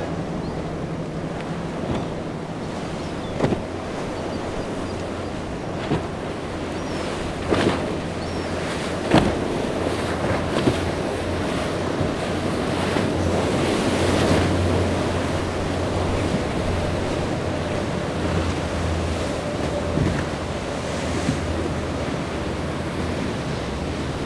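Surf and choppy waves rushing, with wind on the microphone and the low drone of boat engines that swells for a few seconds near the middle. A handful of short sharp thumps stand out along the way.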